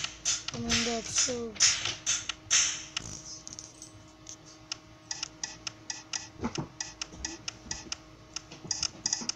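Drum hits from a phone drum-kit app: sharp strikes about twice a second for the first three seconds. After a lull, a faster scatter of light clicks from about five seconds in.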